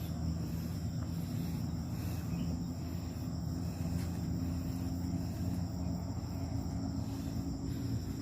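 Insects droning steadily in two high continuous tones, over a louder low rumbling noise.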